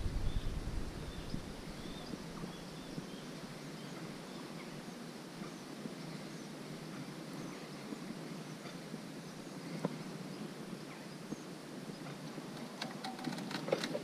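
Steady outdoor background hiss with faint high chirps scattered through it. A cluster of sharp clicks and knocks near the end.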